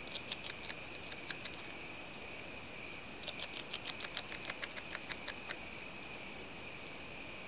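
Beaver chewing on shoreline vegetation: rapid sharp crunching clicks in two runs, a short one at the start and a longer, faster one from about three seconds in. A steady thin high tone sounds underneath.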